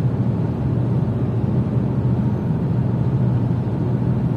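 Inside the cabin of a Lada Vesta with a 1.6-litre engine and CVT cruising at about 90 km/h, the engine turning around 2000 rpm. There is a steady low drone with road and tyre noise.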